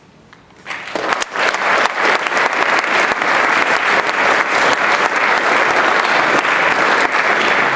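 Audience of students clapping: applause that breaks out suddenly less than a second in and holds loud and steady.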